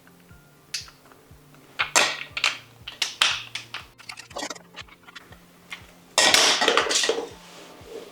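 Clicks, taps and light scraping of hand-tool work on electrical wiring, with a louder rasping scrape about six seconds in, over a steady low hum.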